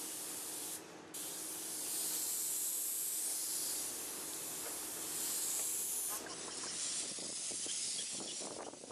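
Paint spray gun hissing steadily as it coats corrugated metal roofing, with a short break about a second in and a weaker hiss from about six seconds in.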